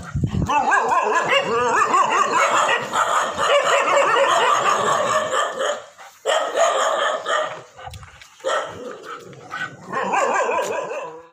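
Dogs barking and yelping, several voices overlapping in an almost unbroken stretch for the first six seconds, then in shorter bursts with a lull before a last outburst near the end.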